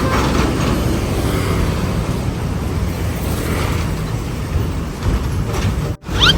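A heavy road vehicle's engine running steadily in traffic. Near the end the sound cuts out abruptly, and a short rising whistle-like tone follows.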